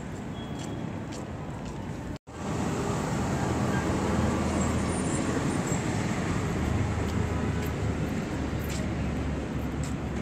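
Street traffic noise: a steady rumble of road vehicles. The sound cuts out for a moment about two seconds in and comes back louder.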